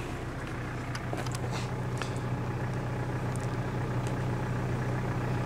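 Mitsubishi Pajero 4x4's engine idling steadily, with a few short, faint clicks over it.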